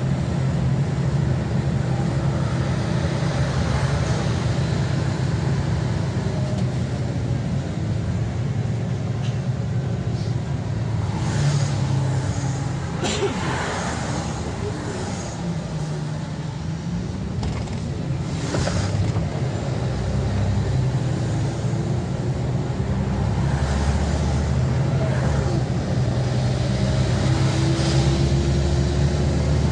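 Interior of a Scania OmniLink city bus under way: a steady low engine hum with tyre and road noise on wet pavement and other cars passing close by. A few short sharp sounds come through in the middle, it goes a little quieter for a few seconds, and the engine note rises near the end.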